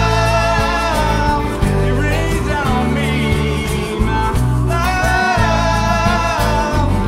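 Live band playing a song: several voices singing together over strummed acoustic guitars and electric bass.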